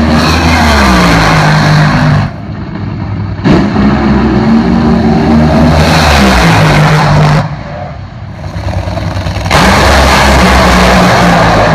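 Nitromethane-burning Top Fuel dragster and Funny Car engines running very loud, heard in three separate bursts. In each burst the engine pitch slides down. The sound cuts in abruptly twice, about three and a half seconds in and again near the end.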